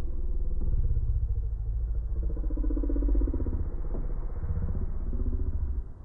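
An engine running with a fast, even pulse, dropping away sharply near the end.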